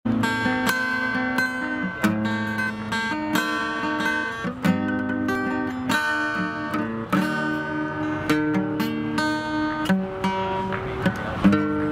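Acoustic guitar strummed live, chords ringing out about twice a second in a steady rhythm, with no singing.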